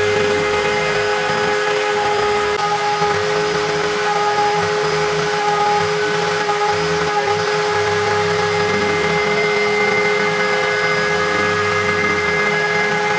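Homemade CNC router's spindle milling a round pocket into an aluminium plate with a small end mill: a steady high whine over continuous cutting noise, the low rumble swelling and easing every few seconds as the cutter moves through the metal.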